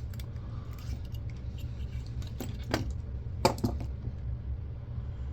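Small metal and plastic parts of an old camcorder clicking and clinking as it is taken apart by hand: four sharp clicks in the middle, over a steady low hum.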